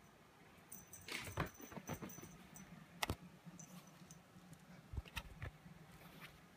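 A kitten scampering back across tatami with its fetch toy and a phone being handled close by: scattered light taps, clicks and rustles, with a sharp click about three seconds in and a thin high ringing that comes and goes.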